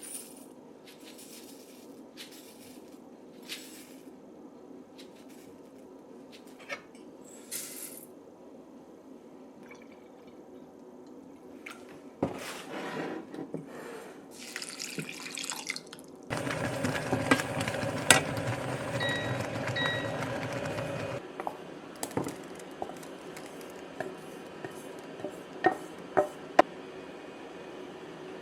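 Water running from a tap for about five seconds midway, starting and stopping abruptly, with scattered clinks and knocks of kitchenware before and after.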